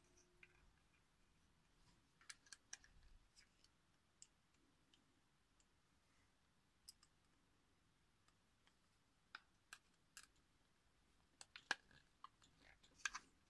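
Faint, scattered clicks and taps of 3D-printed plastic differential and axle-housing parts being handled and fitted together by hand, with small clusters of clicks a couple of seconds in and again near the end.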